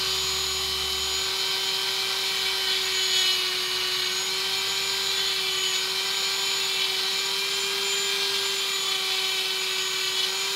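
Dremel rotary tool running at a steady high speed with an unchanging whine, its bit grinding away a clear plastic part.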